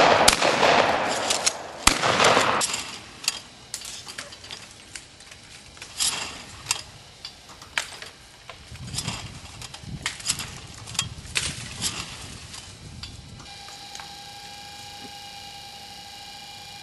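Shotguns firing at clay targets: several shots in quick succession, with echo, in the first two and a half seconds. A run of lighter clicks and knocks follows. Near the end a steady tone sets in.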